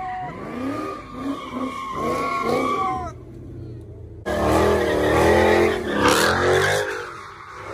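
Dodge Challenger doing donuts, its rear tyres squealing in wavering tones over a revving engine. About four seconds in the sound cuts abruptly to a louder burst of engine and tyre squeal.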